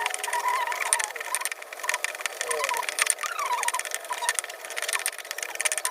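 Stone pestle grinding spices in a stone ulekan mortar: irregular knocks and scrapes, with short squeaky glides mixed in.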